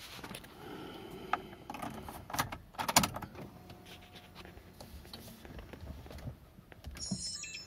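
Car keys jangling and clicking in the cabin as the key goes into the ignition of a 2000 Honda Accord and is turned to on, with a sharp clunk about three seconds in; the engine is not yet running. A brief high-pitched electronic chirping comes near the end.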